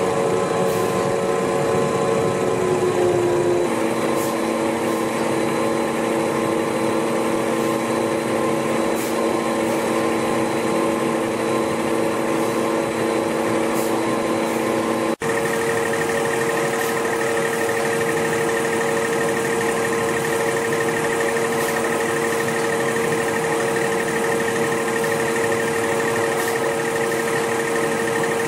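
Baosuo YD-PL600S toilet roll rewinder line running: a steady machine hum of motors and rollers with several held tones. The tones shift a few seconds in, and the sound cuts out for an instant about halfway through and comes back with a higher tone added.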